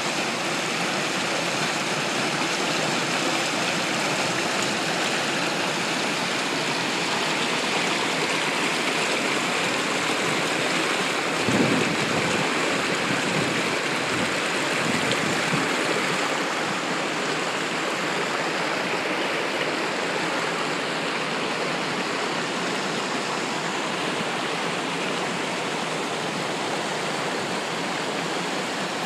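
Creek water rushing steadily through whitewater rapids over boulders. A brief low thump about twelve seconds in.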